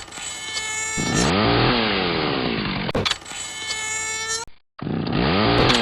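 Chainsaw engine running and revving, its pitch dropping and climbing back, in pieces spliced together with abrupt cuts and a brief dropout about four and a half seconds in.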